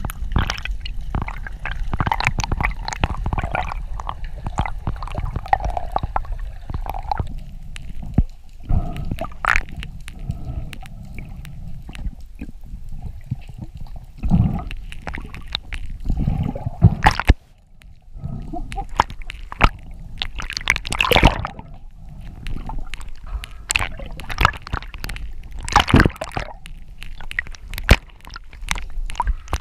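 Underwater sound heard through a camera housing: a steady low rumble of moving water with gurgling and many scattered clicks and knocks, a few of them louder sharp strikes.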